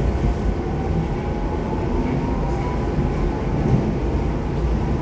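Inside the cabin of an airport people-mover train running along its guideway: a steady low rumble with a faint whine.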